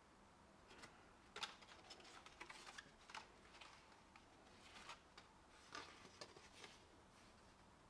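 Faint, irregular rustles and light ticks of thin wood veneer sheets being handled and shuffled through, the sharpest about a second and a half in.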